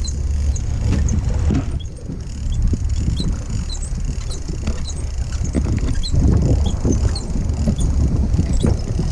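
Low, steady rumble of wind and sea around an open fishing boat, with scattered light clicks and small squeaks, busier near the end.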